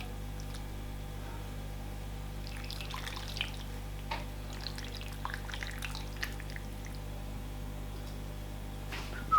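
Faint scattered clicks and small liquid sounds, like dishes and soup being handled at a table, over a steady low hum. The clicks come between about two and a half and six and a half seconds in.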